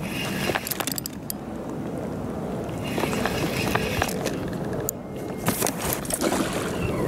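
Handling noise from a Shimano Stella 3000HG spinning reel and rod while a hooked fish is played: irregular clicks, knocks and rubbing as the reel is cranked and gripped.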